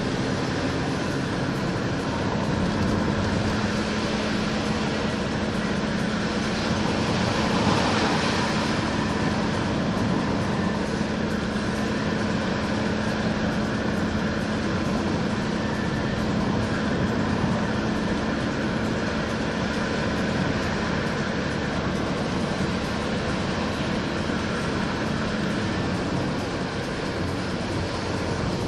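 Steady engine and road noise heard from inside a moving car: a low engine hum that steps up in pitch about two seconds in and then holds steady, over tyre and wind rush, with a brief louder rush about eight seconds in.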